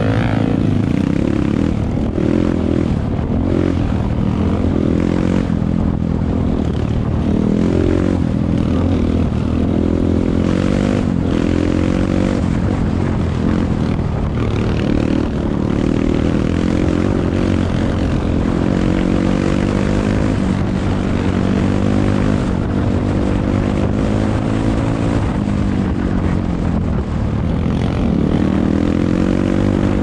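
Kawasaki KLX 125 dirt bike's single-cylinder four-stroke engine heard from on board while riding a trail, its pitch climbing and dropping again and again as the throttle opens and closes and it shifts gears.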